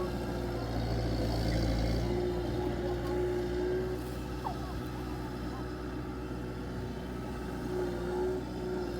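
Engine of farm machinery running steadily at a constant speed, with no change in pitch.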